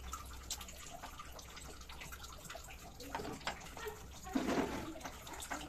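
Kitchen knife cutting soft sapota fruit on a wooden chopping board: scattered light knocks of the blade against the board.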